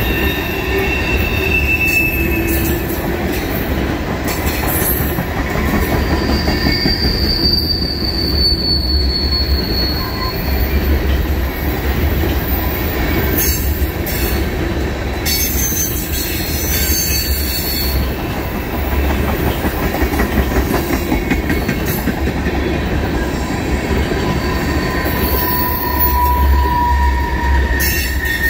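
Empty freight tank cars rolling past on steel rails in a steady, continuous wheel-on-rail roar. Thin high wheel squeals come and go several times, one of them long and drawn out.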